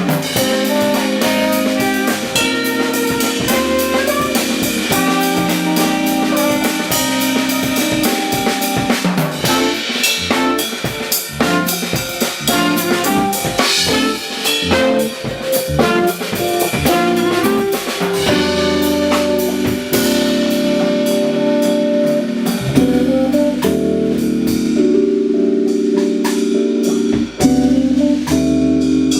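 Small jazz band playing an instrumental piece, the drum kit busy with snare and cymbal hits over keyboard and bass lines. The drumming thins out about two-thirds of the way through, leaving long held keyboard chords.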